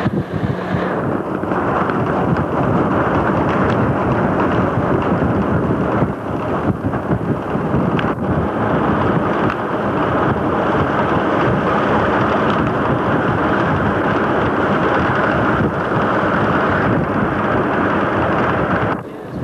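An open Model T Ford heard from on board while driving: its engine runs under a steady rush of wind buffeting the microphone.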